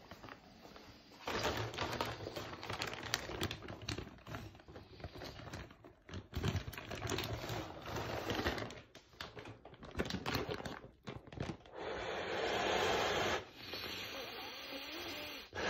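Plastic bag crinkling and rustling as it is handled, with many small clicks. About twelve seconds in, and again near the end, breath is blown steadily into a zip-top bag to inflate it.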